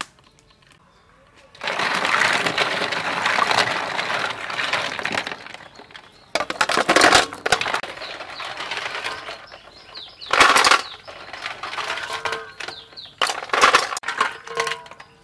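Live snails being washed by hand in a metal basin of water: shells clattering and clinking against each other and the metal, with water sloshing. There are several louder rattles as handfuls are stirred.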